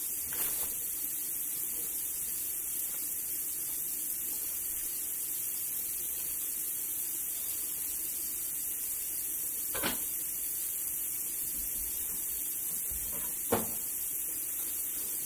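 Steady hiss in a kitchen, broken by two light knocks of things being handled, one about ten seconds in and one near the end.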